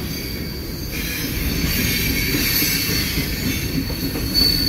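Double-stack intermodal container cars of a long freight train rolling past, with a steady rumble of wheels on rail and a thin, steady high-pitched wheel squeal that gets louder near the end.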